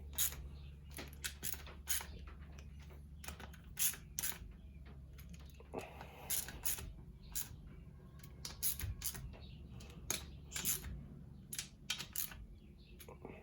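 Hand tools clicking and tapping on metal in short irregular bursts as the M6 bolts of a Honda TRX450R water pump cover are snugged down by feel.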